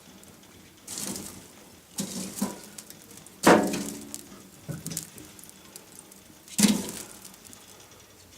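Firewood logs being loaded into the firebox of a wood-burning stove-fireplace: about six separate knocks and clinks of wood against the metal firebox and door. The loudest comes about three and a half seconds in and rings briefly.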